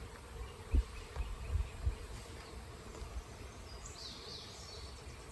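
A honeybee swarm buzzing as a faint, steady hum, with a few low bumps in the first two seconds.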